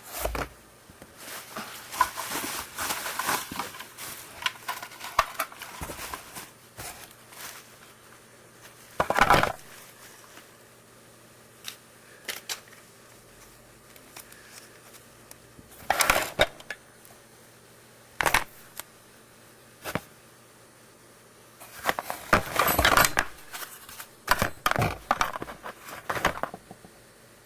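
Intermittent handling of small plastic parts: clicks, rustles and scrapes. Louder crackling bursts come about 9 s, 16 s and 18 s in, and a dense run of them near the end.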